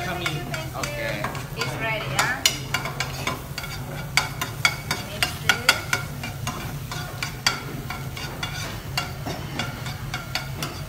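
A metal ladle stirring scrambled eggs in a frying pan over a gas burner, scraping and clinking against the pan in quick irregular strikes, with frying sizzle and a steady low hum underneath.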